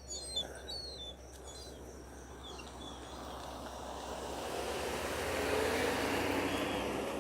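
A vehicle passing by, its noise swelling steadily to its loudest about five to six seconds in and then easing off. Birds chirp briefly in the first couple of seconds.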